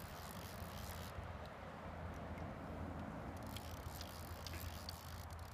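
Faint, steady outdoor background noise: a low rumble with hiss and a few faint, scattered ticks.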